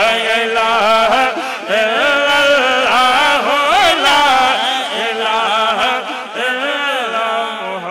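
Two male voices singing a naat into microphones, one voice winding through ornamented runs over a steady held low note.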